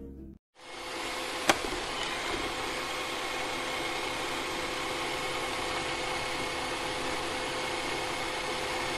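Robot vacuum running: a steady whirring noise with a faint hum, starting about half a second in, with one sharp click about a second and a half in.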